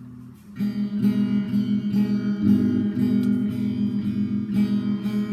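Acoustic guitar strummed in a steady rhythm, starting about half a second in: the instrumental intro of a song.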